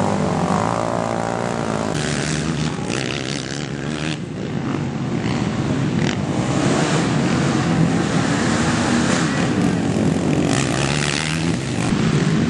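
Racing quad (ATV) engines revving on a dirt motocross track, their pitch rising and falling as the riders accelerate and back off.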